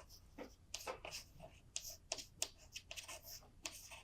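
Faint, irregular clicks and short scratchy taps, several a second.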